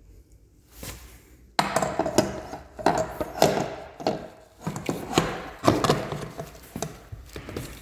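An irregular run of knocks and clatter that starts abruptly about one and a half seconds in.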